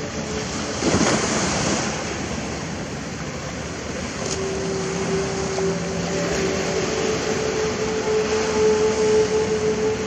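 Sea waves washing on the shore, one breaking with a louder rush about a second in, over a steady hum.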